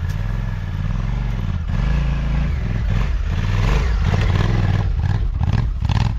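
Adventure motorcycle engine running while riding a dirt trail, its pitch rising and falling with the throttle, over wind noise. A few short knocks come near the end.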